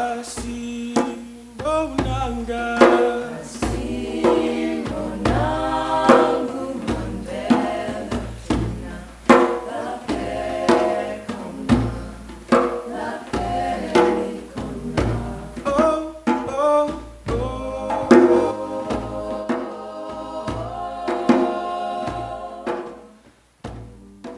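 A small mixed group of voices singing a chant together over a hand drum struck in a steady beat. The song stops about a second before the end.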